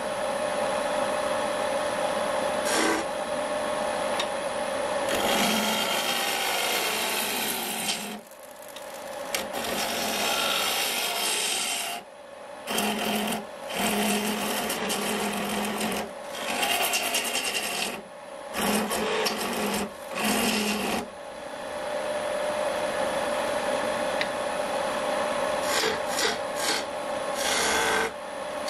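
A turning tool cuts a spinning wooden blank on a wood lathe, giving a steady scraping hiss of shavings coming off. The cut breaks off briefly several times as the tool is lifted and moved along the rest.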